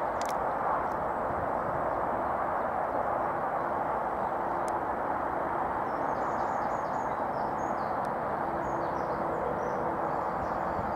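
Steady outdoor background noise with no clear pitch, and small birds chirping faintly about six to nine seconds in.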